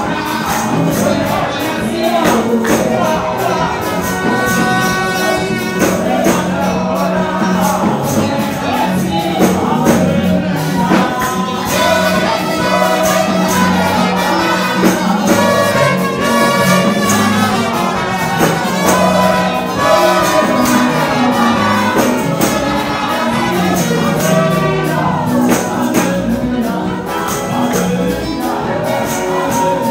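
Live church song sung into microphones by a young woman and a man, over amplified band accompaniment with a steady, even percussion beat.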